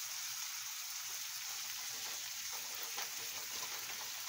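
Peppers, onions, olives and tomato paste frying in oil in a stainless steel pan, sizzling steadily, with a wooden spoon stirring through them and knocking faintly a few times.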